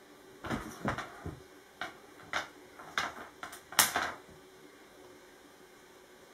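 Bengal kitten pouncing on and batting a wand toy on a bare wooden floor: a quick series of knocks and clatters of the stick and paws hitting the floorboards, the loudest near the end of the run.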